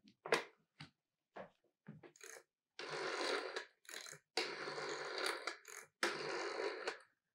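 Old rotary telephone being dialled: a few handling clicks as the handset is lifted, then the dial whirring back with its clicking several times, about a second each.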